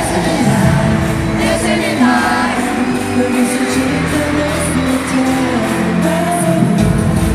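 Live K-pop concert music heard from among the audience: a male vocalist sings a held, sliding melody into a microphone over the band's backing music, ringing in a large hall.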